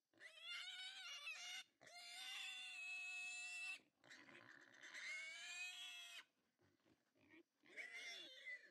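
Captured wild boar squealing in a series of long, high-pitched cries of up to about two seconds each, with a longer pause before a shorter cry near the end; the squeals of a trapped boar being handled.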